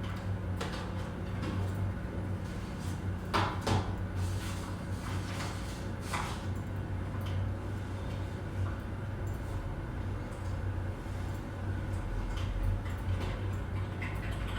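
Office ambience: a steady low hum with scattered clicks and knocks over it, the loudest a pair of knocks about three and a half seconds in.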